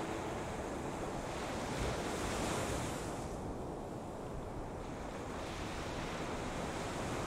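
Sea surf washing in: a steady rush that swells about two seconds in and again near the end.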